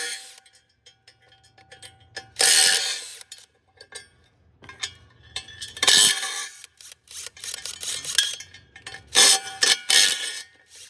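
Metallic mechanical clatter: loud bursts of clanking and scraping about 2.5 s in, about 6 s in and again from 9 to 10 s, with scattered sharp clicks and a faint low hum between them.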